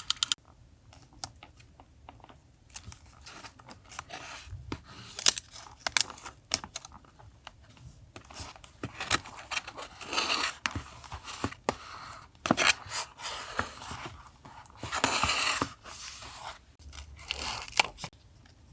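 Paper being torn by hand, several short rasping rips, with small taps and rustles of paper being handled between them.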